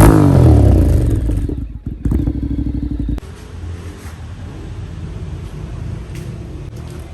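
Honda X-ADV750's parallel-twin engine through a MIVV slip-on exhaust, revs falling away from a loud blip and settling to a steady idle. The idle gets quieter about three seconds in.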